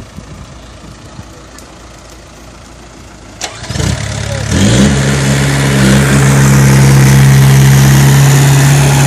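A heavy vehicle's engine starting about three and a half seconds in: after a sharp click it catches, its pitch climbs quickly, then it settles into a loud, steady run.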